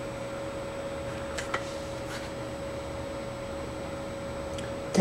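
Steady room noise: an even hiss with a constant electrical hum, and a few faint soft ticks around the middle.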